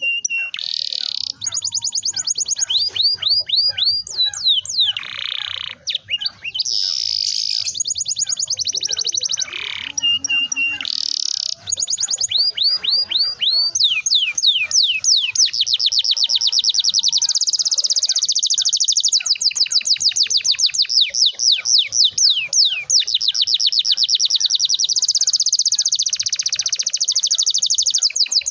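Domestic canary singing: short broken phrases with a few held whistled notes, then, about halfway through, a long unbroken roll of rapid high chirps.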